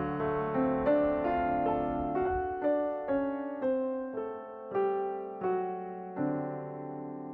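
Background music: a slow, gentle solo piano melody, one note at a time with sustained chords underneath.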